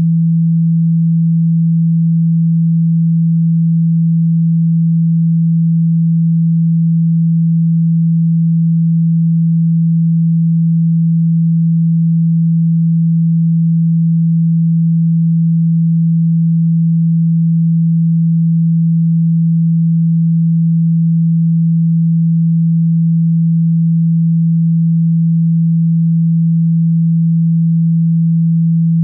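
A steady low sine-wave tone of about 165 Hz, held without change. It is a speaker-cleaning tone, played through a phone speaker to vibrate dirt, dust and water out of the grille.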